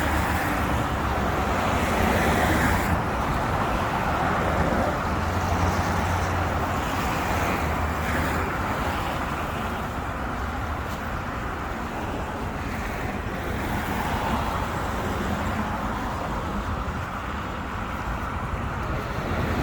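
Road traffic on a busy city avenue: a steady wash of car and tyre noise with a low engine rumble, swelling a little as vehicles pass and easing again.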